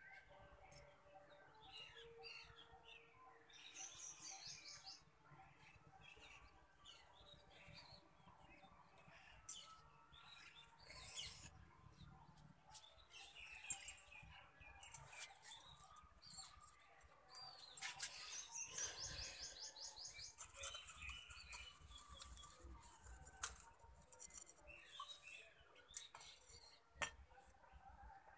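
Small birds chirping and twittering throughout, with quick rapid trills at times and a few sharp clicks.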